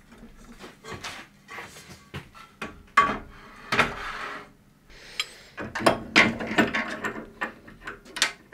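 Aluminium extrusion and CNC gantry parts being handled and fitted: irregular metal knocks, clicks and short scrapes, with the sharpest knock about three seconds in and a busier run of clatter in the second half.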